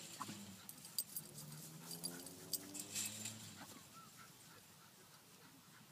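Dog vocalising in low, drawn-out sounds for about two seconds, with scattered light clicks and rattles.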